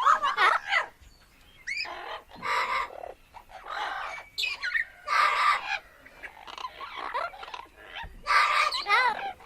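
Parrot squawking: a run of about ten harsh calls, each under a second long, several sliding up and down in pitch, with short pauses between them.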